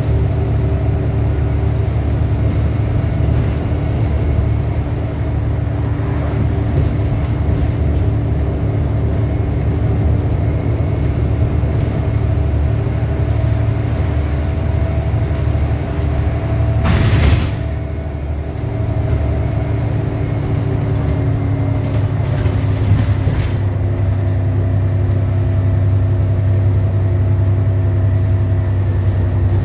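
Alexander Dennis Enviro400 MMC double-decker bus heard from inside the lower deck while driving: the engine and drivetrain run with a steady low drone and several held tones over road noise. A brief burst of noise comes about seventeen seconds in.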